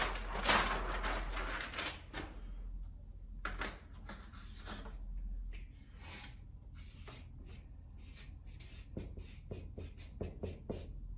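A flip chart's paper sheet is flipped over the top with a rustle for about the first two seconds. From about six seconds in, a marker writes on the paper in a quick run of short scratching strokes.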